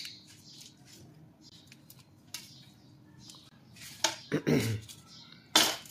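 Metal palette knife scraping and spreading melted chocolate thinly across a stone countertop: a run of faint short scrapes, with louder scrapes about four seconds in and just before the end.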